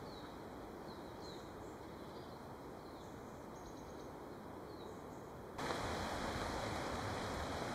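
Outdoor woodland ambience: a steady background hiss with a few faint, short bird chirps, then about five and a half seconds in it jumps abruptly to a louder, even rush of wind.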